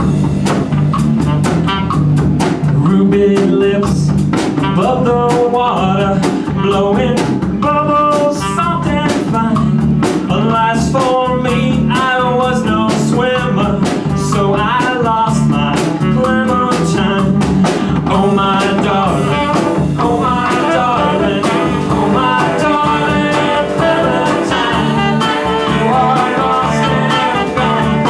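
Live band playing a bluesy, jazz-tinged groove: a saxophone carries a fast-moving lead line over guitar, drum kit and hand drums.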